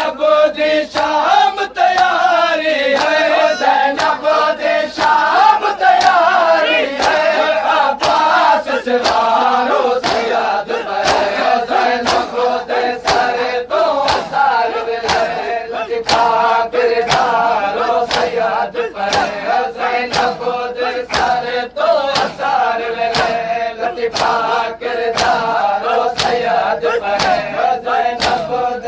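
A crowd of men chanting a noha in unison, with sharp rhythmic chest-beating (matam) strikes keeping time about three strikes every two seconds.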